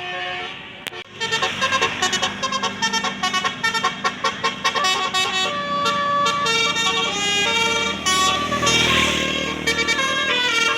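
Bus telolet horn, a multi-tone musical air horn, playing a melody that starts with a few soft held notes and then turns into fast runs of short notes mixed with longer held ones. A short rush of noise comes about nine seconds in.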